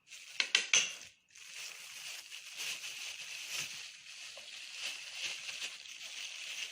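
A few sharp clicks from a spoon against a container, then a steady wet scraping as thick tomato and harissa sauce is worked with a spoon.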